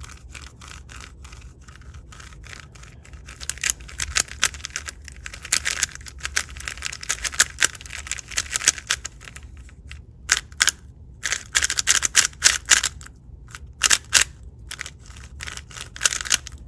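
Angstrom Studio MoYu WeiLong WR M 3x3 speed cube being turned fast by hand, in bursts of rapid plastic clicks and scrapes with short pauses between. Out of the box it has a dry, sandy sound despite its factory lube.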